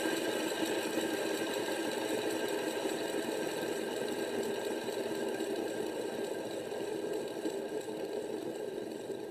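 Fidget spinner spinning on a tabletop, its bearing whirring steadily and slowly fading as it winds down.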